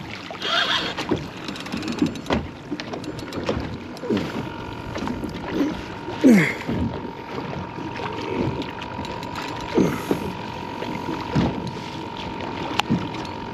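Water sloshing and splashing against a small boat's hull as a hooked nurse shark thrashes at the surface alongside, in uneven surges with a few sharper splashes.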